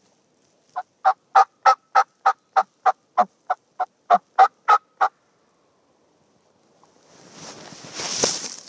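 Turkey yelping: a run of about fifteen short, evenly spaced yelps, about three a second, that stops after about four seconds. Near the end, loud rustling of clothing and handling begins.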